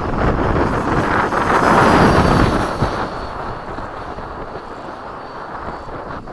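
A 90mm electric-ducted-fan F/A-18 model jet making a pass. Its rushing fan noise swells to a peak about two seconds in and then fades, with a thin high whine that slides slowly down in pitch as it goes by.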